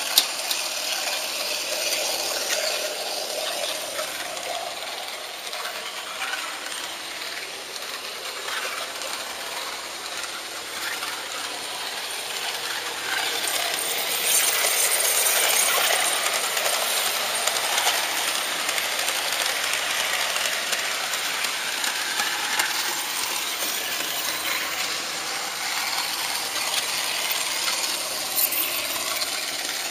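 HO-scale model train running along the track, its wheels rolling on the metal rails with a steady metallic rattle and hiss. There is a sharp click just at the start, and it grows louder for a few seconds around the middle.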